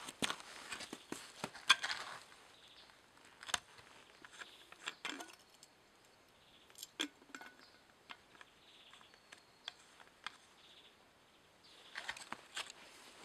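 Scattered light clicks and knocks with short bursts of rustling as a Husqvarna 240 chainsaw is handled with its engine off. The rustling comes near the start and again near the end, with a quieter lull between broken by a few single clicks.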